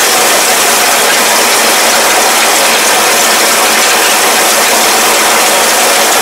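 Tractor-drawn straw baler at work, its pickup and feed mechanism clattering steadily and loudly as it gathers rice straw.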